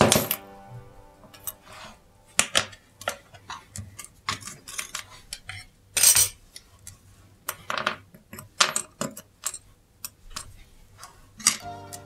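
Irregular small metal clicks and clinks, a dozen or so, each with a short ring: watchmaker's tools and clock movement parts knocking together on the bench.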